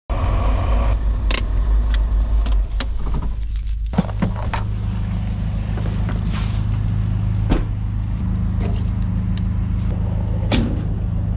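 Land Rover Defender idling with a steady low drone whose sound changes about four seconds in, as the driver's door opens; over it, a run of sharp clicks, knocks and jingles from the door and handling.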